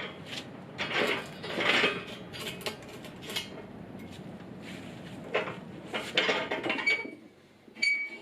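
Metal pieces clattering and clinking as they are handled, in irregular knocks, with two short ringing metallic strikes near the end.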